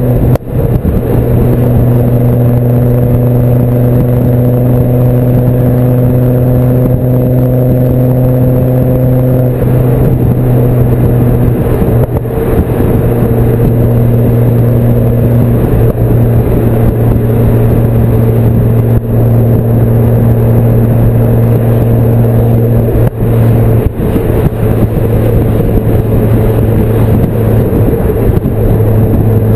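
Ford Focus RS Mk2's turbocharged five-cylinder engine heard through a full Milltek exhaust with a sports catalyst and no silencer, running at steady cruising revs. The note holds a nearly constant pitch, with a brief dip just after the start and small shifts in pitch about a third of the way in and again near the middle.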